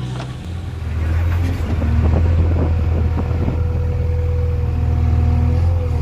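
JCB 3DX backhoe loader's diesel engine working under load, getting louder about a second in as the arm lifts a bucket of soil, with a run of knocks and rattles in the middle and a steady whine over the engine from about two seconds in.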